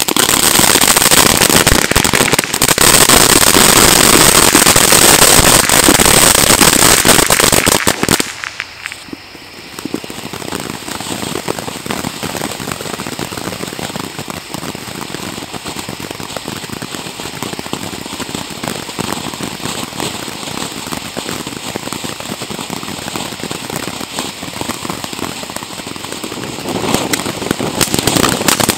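Pyro Planet 'Prismatic' 200-gram firework fountain burning, a dense hissing, crackling spray of sparks. It is loud for about the first eight seconds, drops off sharply, runs on more quietly and steadily, then grows louder again near the end.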